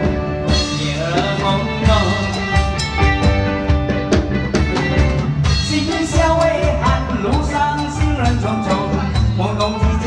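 A singer performing a Chinese pop song over accompaniment with a steady drum beat.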